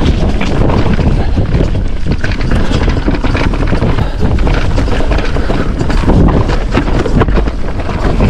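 Wind buffeting the microphone over the rush of knobbly tyres on a rough dirt singletrack, with a constant scatter of knocks and rattles from the electric mountain bike jolting over roots and ruts at speed.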